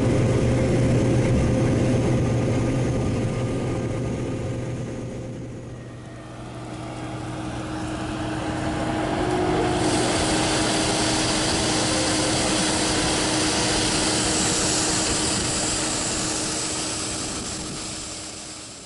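Heavy farm machinery engine running steadily with a low hum. About six seconds in it dips and gives way to a noisier, hissing machine sound, which fades out near the end.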